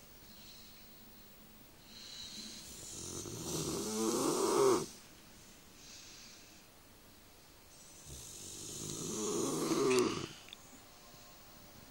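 Bullmastiff snoring: two long, rattling snores a few seconds apart, each building up and then cutting off sharply.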